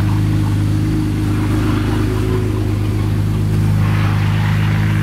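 Jeep Gladiator pickup's engine running steadily at low revs.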